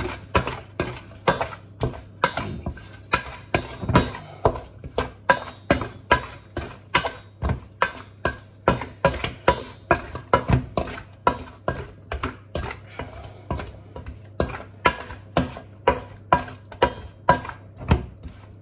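A metal utensil knocking repeatedly against a dish, about two to three strokes a second, each knock with a slight ring.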